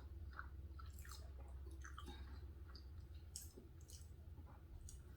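Faint, wet chewing of a mouthful of macaroni and cheese, with scattered soft clicks and squishes over a steady low hum.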